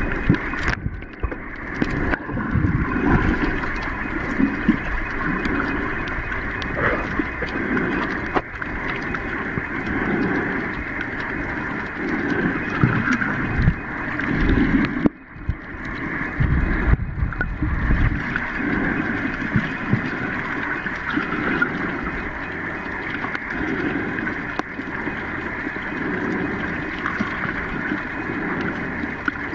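Muffled underwater rush of moving water, with irregular low surges and rumbles as the water and the swimmer move around the microphone.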